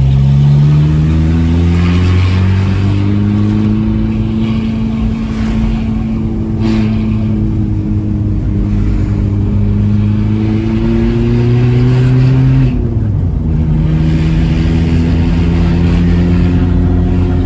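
Volkswagen Saveiro pickup's engine heard from inside the cab, its pitch climbing slowly as the truck accelerates in gear. About thirteen seconds in the pitch drops sharply at an upshift, then the engine runs steady.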